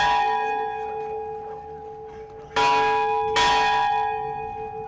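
Church bell tolling for a funeral. The ringing of a stroke just before fades slowly, then two more strokes come close together about two and a half seconds in, each ringing on and dying away.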